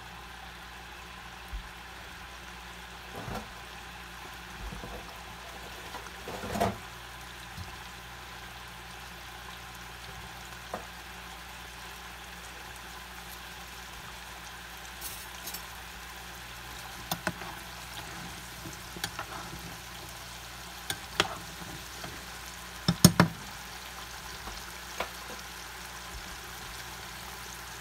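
Ground-pork burger patties frying in butter in a skillet: a steady sizzle with scattered sharp pops and crackles. The loudest pops come in a cluster near the end.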